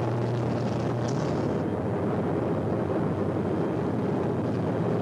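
A loud, steady rumbling roar, a film sound effect, with a low electric hum under it that stops about a second in.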